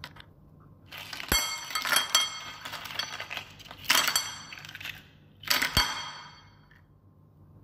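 Hard sea snail shells clattering and clinking against each other and against a plate as they are pushed about by hand, in three main bursts about a second and a half, four and five and a half seconds in, with a brief ringing after each.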